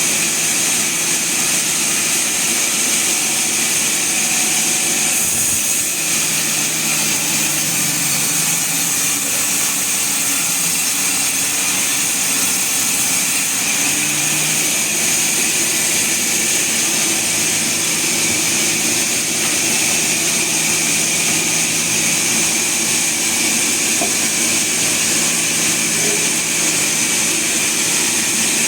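Sawmill machinery running steadily, a constant mechanical drone with a strong hiss, its low hum shifting slightly in pitch about six and fourteen seconds in.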